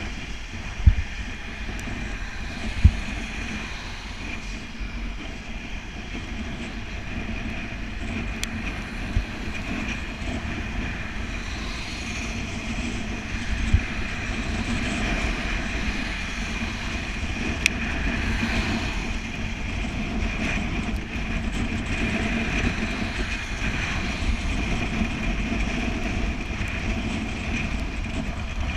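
Wind rushing over the microphone and tyre noise of a road bicycle ridden fast on a wet road, steady throughout, with a few sharp knocks from bumps, the loudest about one and three seconds in.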